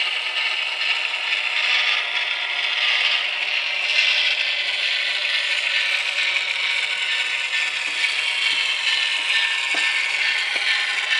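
HO-scale model locomotive's QSI sound decoder playing a diesel engine sound through its tiny onboard speaker: steady and tinny, with no bass.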